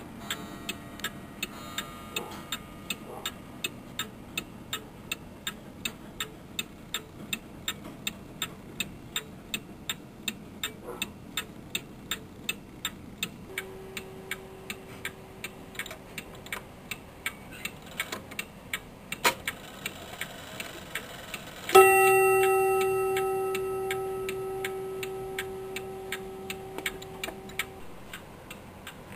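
Antique Seth Thomas Cymbal 2 bim-bam clock ticking steadily. About three-quarters of the way through, its strike train sounds a single blow on the cymbal bell, which rings on and fades slowly while the ticking continues.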